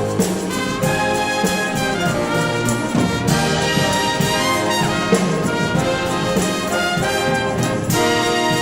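Orchestral music led by brass, trumpets and trombones playing a lively melody over a full ensemble.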